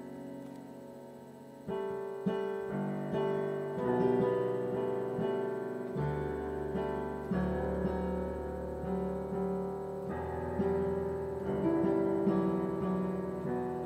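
Piano being played: struck notes and chords that ring and fade, changing every half second or so, with low bass notes coming in about six seconds in.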